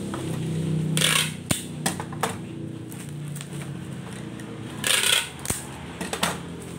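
Plastic bubble wrap being handled and wrapped around a small toy gun: two short crinkling, rasping bursts, one about a second in and one about five seconds in, with a few light clicks between them.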